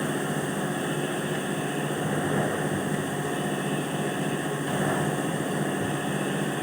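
Steady machinery running: an even hum with constant tones and no pauses or strikes.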